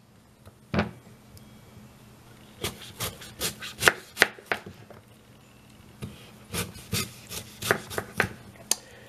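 Kitchen knife cutting through a raw Granny Smith apple around its core and striking a plastic cutting board: one cut about a second in, then two runs of quick short strokes in the middle and toward the end.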